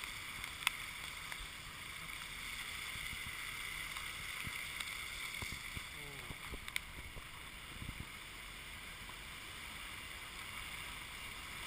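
Steady hissing noise with two sharp clicks, one about a second in and one near the middle.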